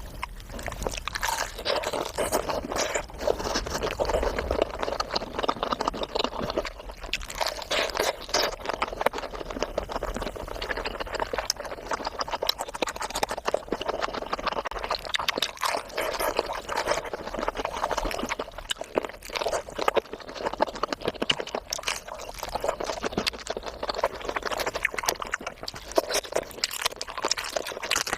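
Close-miked eating sounds: continuous wet chewing, lip smacks and slurps, many small moist clicks with no pauses.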